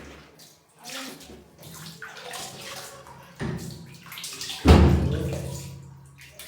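Water splashing and swishing in a tub as a cat is washed, in irregular bursts. About two-thirds of the way through, a loud low-pitched sound rises sharply, then fades over a second or so.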